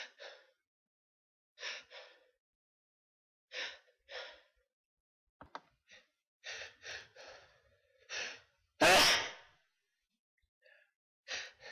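A person's short gasping breaths, mostly in pairs, building up to a sneeze, then one loud sneeze about nine seconds in, followed by another pair of gasps near the end.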